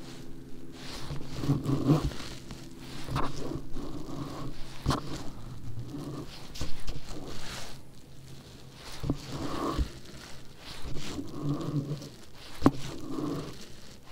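Bow-mounted electric trolling motor humming in short spurts, its low hum swelling and fading several times. A few sharp clicks come through, the loudest near the end.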